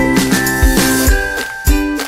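Upbeat background music with a steady drum beat and a bright, tinkling melody.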